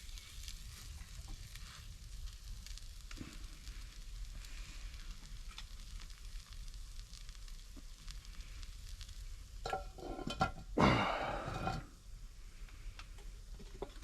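Food sizzling over a fire pit, with small crackles throughout and a louder burst of sizzling or scraping about eleven seconds in.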